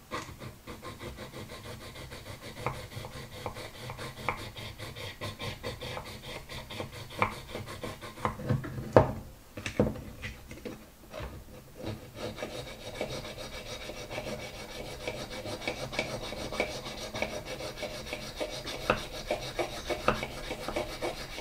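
Flat metal file rasping against a cast Zenith carburettor part in quick repeated strokes, taking down a fit machined too tight. There is a short break with a few sharp knocks about nine seconds in, then the filing resumes.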